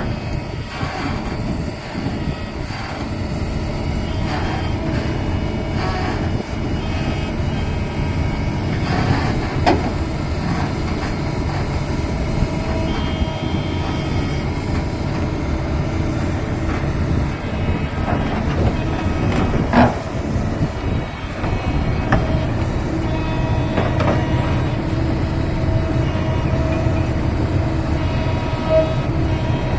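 Komatsu PC200 hydraulic excavator's diesel engine running steadily under load, with a few sharp knocks, the loudest about 20 seconds in.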